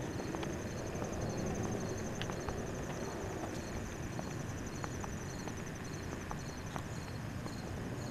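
Night insects chirping: a continuous high pulsing trill, with a second insect chirping about twice a second. Scattered light clicks of footsteps and a low rumble of background noise run underneath.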